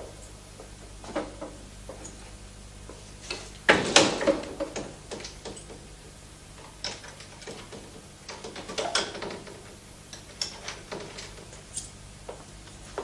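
Handling noise: a run of mechanical clicks, knocks and rattles of a small mechanism worked by hand. The loudest cluster comes about four seconds in, with another around nine seconds in.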